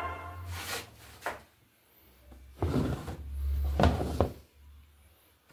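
Plastic trays handled in a wooden rack, making a series of short knocks and scrapes, several in the second half.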